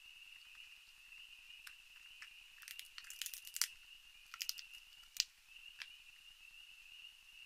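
Raccoons eating on a wooden deck railing: clusters of sharp crunching and clicking, loudest about three and a half and five seconds in. Under it, the steady high-pitched drone of night insects.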